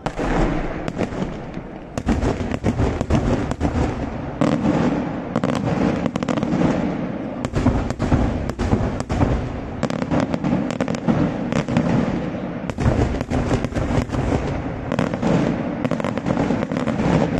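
Daytime fireworks: a rapid, unbroken barrage of bangs from shells bursting in the air, starting suddenly and going on without a pause.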